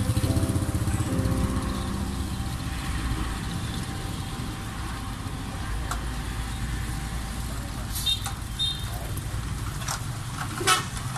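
Roadside vehicle noise: a motorbike engine puttering close by at the start, then a steady low rumble of truck and traffic engines, with two short high toots about eight seconds in and a sudden thump near the end.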